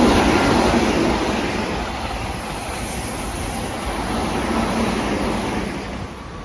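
Keihan 5000 series electric commuter train running, a steady rumble that is loudest at first, eases off, swells briefly and drops away near the end.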